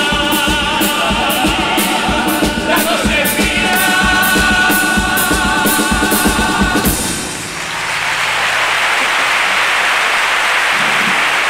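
Male carnival comparsa choir singing the closing chord of its medley, with Spanish guitars and a drum struck about twice a second. About seven seconds in the song ends and the audience applauds.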